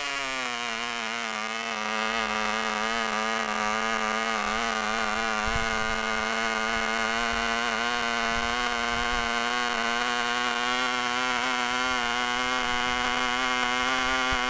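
MP Jet .061 two-stroke model airplane engine running flat out on a test stand, swinging an APC 5 1/2 x 2 1/2 propeller with a high-pitched buzzing whine. The pitch wavers and creeps slightly higher as the needle valve is leaned; the run does not seem smooth.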